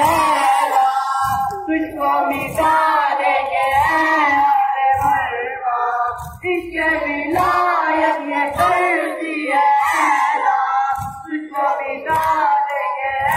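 Urdu noha (Shia lament for Zainab) sung with a crowd of boys' voices, over low thuds about one every two-thirds of a second from hands beating on chests in matam.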